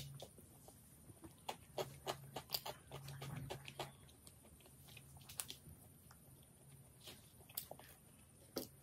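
Close-miked mouth sounds of eating pizza and french fries: soft chewing with scattered wet clicks and smacks, thick in the first few seconds and sparser after.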